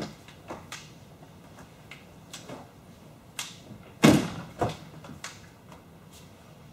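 A series of short knocks and taps, with a louder thump about four seconds in and another just after, as a sunshade is handled and fitted to a Jeep Wrangler JL's roll-bar frame.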